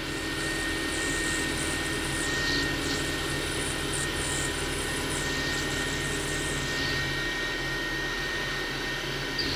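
Small benchtop milling machine (PM30) running steadily with a constant high whine while a counterbore is power-fed down into the workpiece on the fine feed, cutting smoothly.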